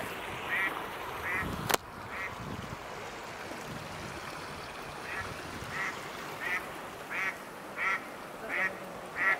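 A duck quacking in a series of short calls, about one every two-thirds of a second, with a pause of a couple of seconds after the first few. A sharp click just under two seconds in.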